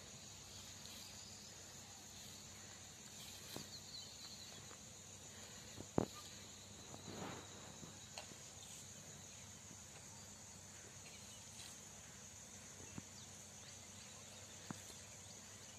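Faint, steady high-pitched chirring of insects in the field, with a single sharp knock about six seconds in.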